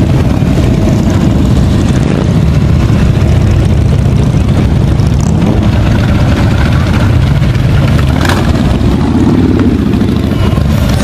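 Harley-Davidson motorcycles riding slowly past one after another, their V-twin engines running loud and steady at low revs.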